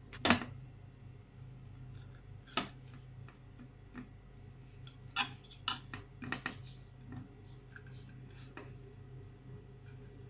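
Kitchen knife cutting the crusts off slices of white bread on a plate: a handful of sharp, irregularly spaced clicks and taps as the blade meets the plate, the loudest just after the start, over a steady low hum.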